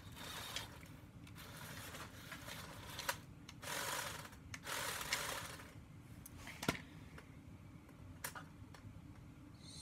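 Lego Technic parts being handled: a few sharp plastic clicks and two short stretches of rustling about four and five seconds in.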